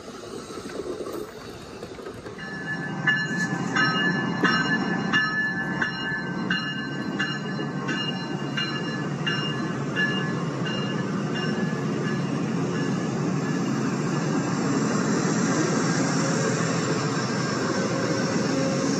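LEGO passenger train running on plastic track: a steady rumble that swells about two seconds in as the train nears, with an even clicking about every two-thirds of a second that fades out about halfway through.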